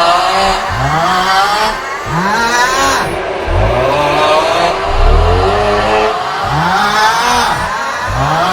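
The 'Aughhhh' snoring meme sound: a man's drawn-out, strained 'aughhh' looped over and over. It is loud and slides up then down in pitch, repeating about once a second with the repeats overlapping.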